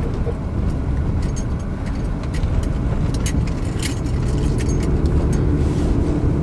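Car cabin noise while driving: a steady low road and tyre rumble, with a scatter of small clicks and rattles from loose items as the car runs over a rough, jagged road.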